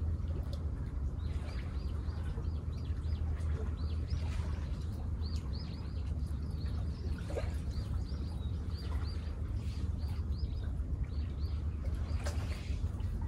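A bird chirping in a long run of short, high notes, a few each second, over a steady low rumble.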